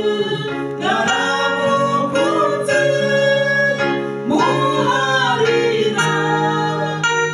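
A man and a woman singing a gospel song together into microphones, their voices holding long, gliding notes.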